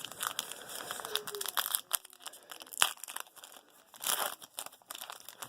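A foil trading-card pack being opened and its cards handled and stacked: wrapper rustling and tearing with a run of sharp clicks, one louder near the middle.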